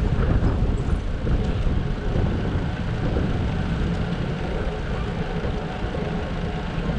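Wind buffeting the microphone of a camera on a moving bicycle, a steady low rumble, with tyre and road noise from the ride underneath.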